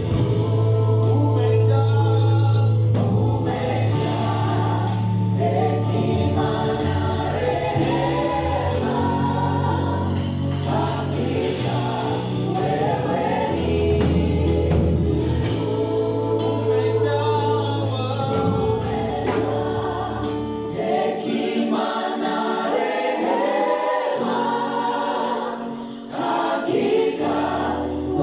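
A choir singing a gospel worship song over a band, with a steady low bass line that drops out for a few seconds about three-quarters of the way through before coming back.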